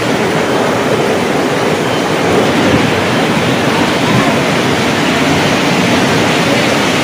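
Torrential rain mixed with hail pouring down in a violent thunderstorm, a loud, steady rush of noise with no let-up.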